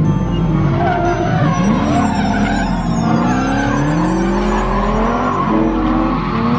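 Drift cars sliding through a corner: several engines revving hard, their pitch rising and falling as the drivers work the throttle, over the hiss and squeal of tyres spinning and sliding sideways.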